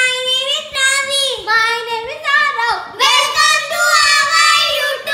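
Children singing together, a short cheerful sung intro in several phrases.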